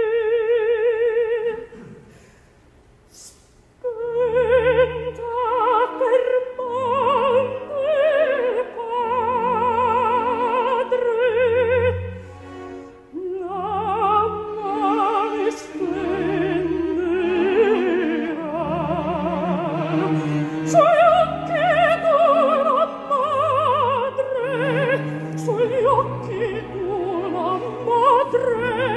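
Operatic soprano singing an Italian opera aria with wide vibrato, accompanied by orchestra. A held note ends about a second and a half in. After a pause of about two seconds the voice returns in long sustained phrases over low orchestral notes, with a brief drop near the middle.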